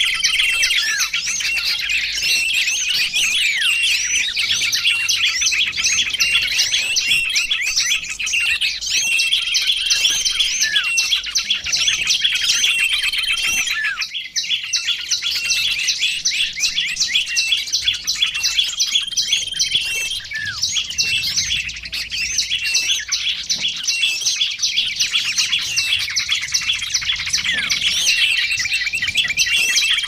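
Bird-lure recording of small songbirds: many rapid, high chirps and trills crowding over one another without pause, with a brief break about halfway through.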